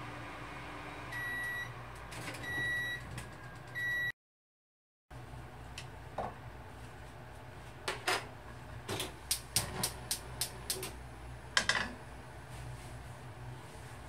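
Sharp microwave oven's running hum stops and it beeps three times, signalling that the heating is done. After a brief cut to silence, a run of sharp clicks follows, at its busiest about four a second.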